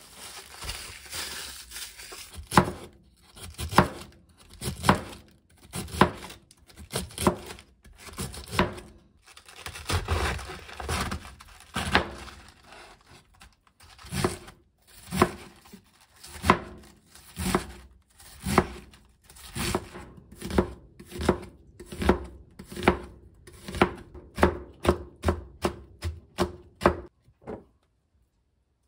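Kitchen knife slicing through a head of cabbage and knocking on a plastic cutting board, about one stroke a second at first and quickening to about two a second near the end. Before the slicing, plastic cling wrap crinkles as it is pulled off the cabbage.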